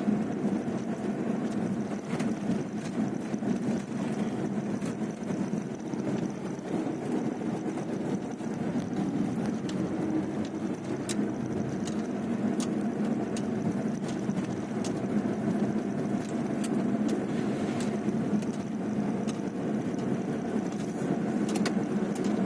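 A motor vehicle's engine running steadily, with a few faint clicks over it.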